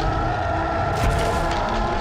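A motor running steadily with a whining hum whose pitch eases slightly downward, over a low rumble.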